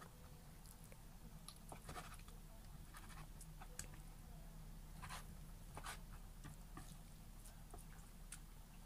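Kitchen knife cutting raw chicken breast on a wooden cutting board: faint, irregular taps of the blade against the board, over a low steady hum.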